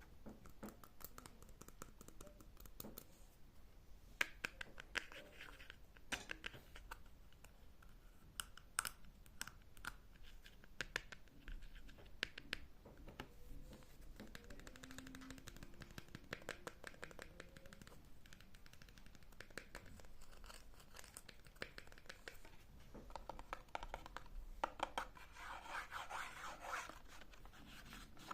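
ASMR scratching and tapping close to the microphone: a quiet run of sharp clicks and scratchy rustling, louder in two stretches, a few seconds in and near the end.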